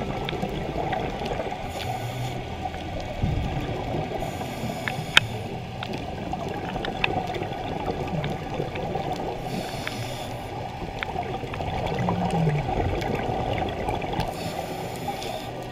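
Underwater sound picked up by a diver's camera: a steady low rush of water, with a hiss of scuba exhaust bubbles every few seconds and a single sharp click about five seconds in.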